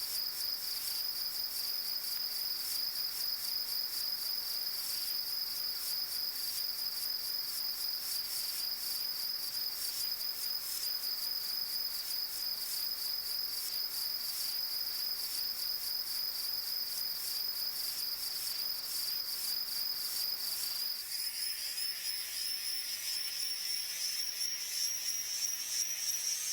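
Steady high-pitched insect chorus, a fast, even trilling like crickets, with its pitch slowly rising over the last few seconds as the lower background hiss falls away.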